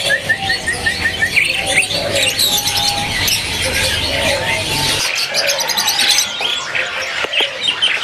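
Many caged songbirds chirping and whistling over one another. Near the start one bird repeats a short note about eight times in quick succession. A low background rumble stops abruptly about five seconds in.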